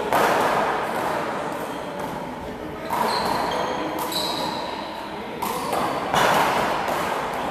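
Small rubber handball smacked by hand and hitting the wall during a one-wall handball rally, five sharp hits a second or so apart, each ringing out in the echo of a large hall.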